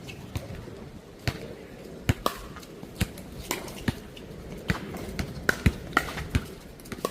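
Pickleball paddles popping against the hollow plastic ball during play, a dozen or so sharp pops at irregular intervals, some with a short ringing tone. Wind rumbles low on the microphone throughout.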